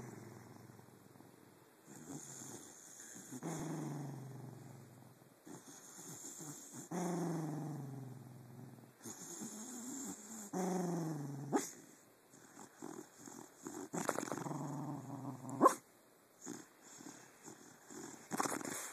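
Sleeping dog making dream vocalisations: four drawn-out growling woofs, each sliding down in pitch, with noisy breaths between them and a couple of short sharp clicks.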